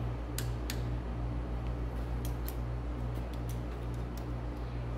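Light metallic clicks and ticks of hand tools, a screwdriver and wrench on the Jacobs engine brake adjusting screw of a Caterpillar 3406B cylinder head, scattered irregularly while the brake lash is set. A steady low hum runs underneath.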